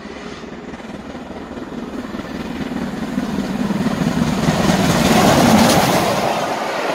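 LMS Black 5 two-cylinder 4-6-0 steam locomotive approaching at speed and running past, its rapid exhaust beats growing steadily louder to a peak about five and a half seconds in.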